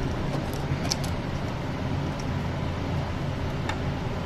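A steady low background hum, with a few faint clicks from handling small metal parts of an espresso machine's boiler thermostats and wiring, about a second in and again near the end.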